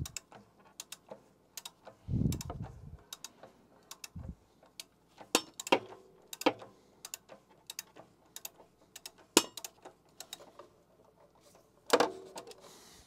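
A long ratchet with a 27 mm socket clicking as it turns out a water heater's anode rod nut. The pawl ticks in short irregular runs, with a few dull thumps and a louder clack near the end.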